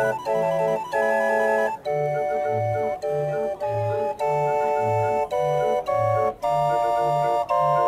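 A 56-note MIDI street organ playing a tune: pipe notes carrying a melody over held chords, with a bass that steps between two notes about twice a second.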